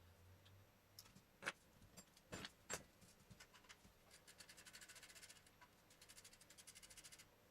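A few sharp metallic knocks and clunks of tools and parts, then two runs of rapid ratchet-wrench clicking, each about a second long, with a short pause between.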